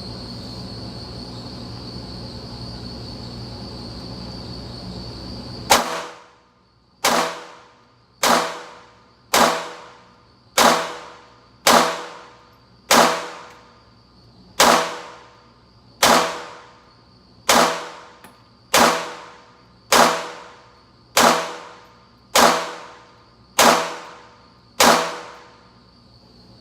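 Taurus TX22 .22 LR pistol firing CCI Standard Velocity round-nose ammunition: sixteen single shots at a steady pace of a little under one a second, each with a short echoing tail. Before the first shot, about six seconds in, a steady high insect chirring.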